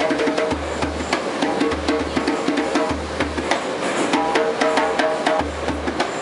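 Dhol drum played in a fast, busy rhythm: a dense run of sharp slaps on the treble head, with deep booms from the bass head coming back about once a second.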